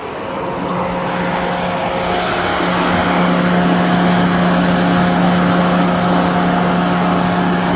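Motor vehicle running close by, its noise building over the first few seconds and then holding steady, with a steady low hum underneath.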